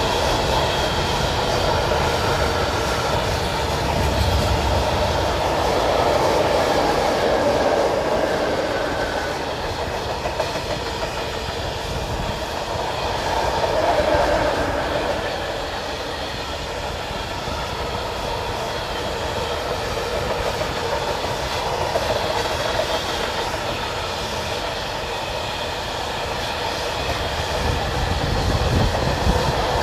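Freight train of open coal wagons rolling past: a steady rumble and clatter of steel wheels on rail, swelling slightly as groups of wagons go by.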